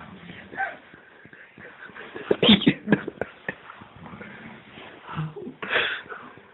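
Hushed voices, with short clicks and rustles scattered between them.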